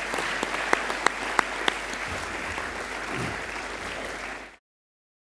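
An audience applauding, a steady patter of clapping with a few single claps standing out; it cuts off abruptly a little after four and a half seconds in.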